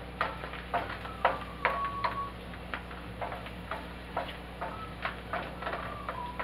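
Wooden spatula scraping and knocking against a stainless steel skillet while stirring garlic and mushrooms in butter. It makes short clicks about twice a second.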